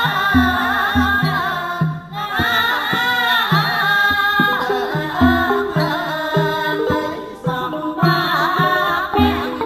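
Cambodian classical dance music for the Apsara dance: a high, wavering, ornamented melody over low drum strokes about twice a second, with steadier pitched notes joining in from about halfway.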